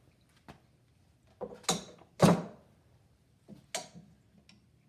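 Four or so short knocks and clunks of tools being handled and set down, the loudest a little past two seconds in.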